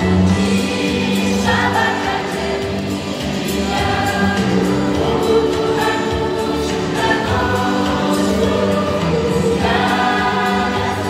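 Mixed choir of men's and women's voices singing a church song together in harmony, with long sustained notes.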